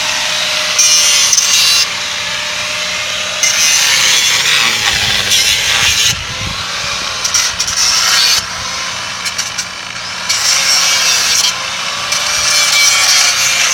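Power grinder cutting the steel rivets off a truck's coil spring buckets. It grinds in about five bursts of a second or two each, with short quieter let-ups between them.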